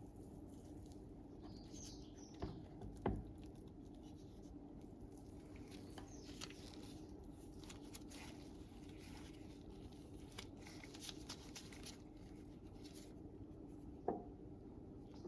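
Quiet kitchen handling sounds of cookie dough being prepared: soft scrapes and rustles with three light knocks, two close together near the start and one near the end, over a steady low hum.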